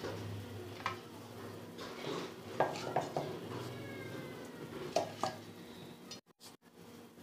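Scattered light clinks and knocks of a metal cooking pot as meatballs are set into it by hand, with a faint high drawn-out note near the middle.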